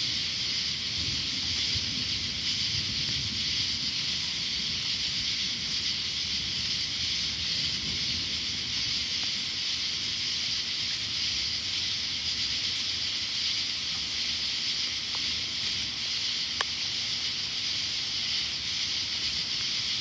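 Steady night-time insect chorus, a continuous high buzzing hiss, with a higher pulsed call that repeats about every two seconds. A faint low rumble comes under it in the first half, and there is one small click near the end.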